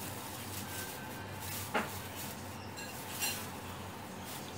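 Handling noise as a plastic-wrapped aluminium oil catch can is lifted out of its cardboard box: soft rustling with two sharp knocks, about two and three seconds in, the first the loudest.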